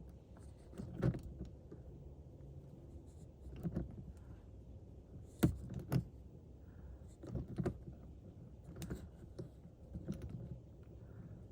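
Needle-nose pliers gripping and working at a car's door lock knob, making scattered small clicks and knocks as he tries to twist it off.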